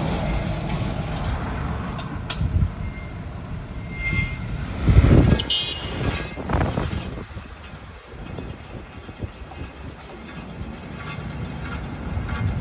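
Acura MDX rolling with a high-pitched metallic screech from a wheel over a low rumble, the screech loudest a few seconds in. This is typical of a pebble caught in the brake, rubbing against the rotor.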